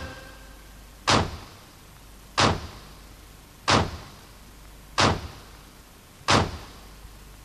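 Matam: a group of mourners beating their chests in unison, five sharp slaps evenly spaced about 1.3 seconds apart, each with a short echo.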